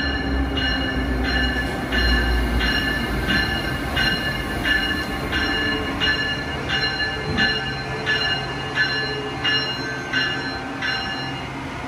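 Amtrak locomotive bell ringing steadily at about three strokes every two seconds, over a low train rumble.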